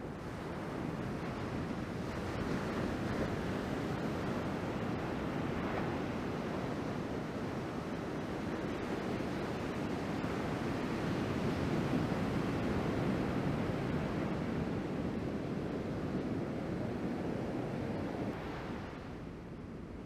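Ocean surf from a small typhoon swell breaking and washing up the beach, a steady rushing that swells about a second in and eases near the end, with wind on the microphone.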